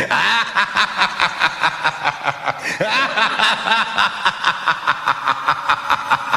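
A high-pitched, sped-up vocal sample that sounds like snickering, chopped into a rhythmic pattern of about four pulses a second. It begins abruptly out of a short silence as the opening of a Miami bass track.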